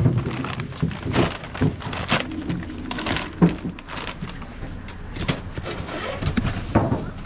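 Irregular clatter and rustle of plastic baskets and plastic bags being handled on a stall table: a string of short knocks and scrapes at uneven intervals.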